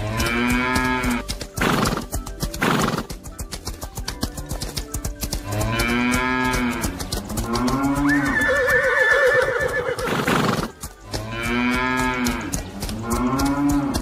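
Animal calls from a stampede sound-effect track: about five long calls that rise and fall in pitch, a wavering higher call a little past the middle, and a few short noisy bursts, all over a fast, steady pounding rhythm.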